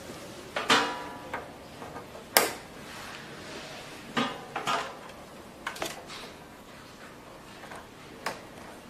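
Hard plastic handpiece and machine parts being handled and fitted together: a string of sharp clicks and clatters, the first ringing briefly, the loudest about two and a half seconds in.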